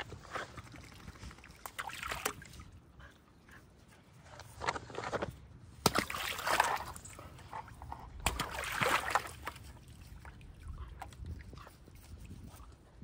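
A puppy splashing and sloshing water in a shallow plastic pool and a tub of floating tennis balls, in several short bursts, the loudest near the middle.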